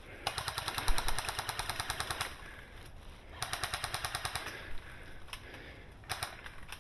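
Airsoft rifle firing two full-auto bursts of rapid, evenly spaced shots, the first about two seconds long and the second about a second, followed by a few single clicks.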